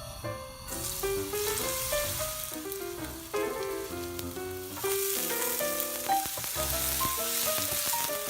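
Food sizzling as it fries in a hot pan. The hiss starts about a second in and grows louder around five seconds in.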